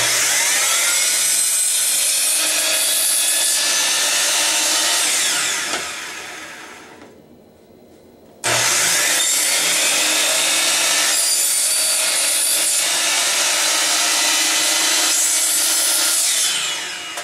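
Electric miter saw cutting slots into a PVC pipe. It starts abruptly, runs about five seconds and winds down, then starts again about eight seconds in for a second run of about eight seconds and winds down near the end.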